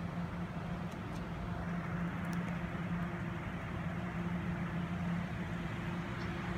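Stationary TEMU2000 Puyuma Express electric train humming steadily with a low tone from its on-board equipment. A second, higher tone joins about three seconds in.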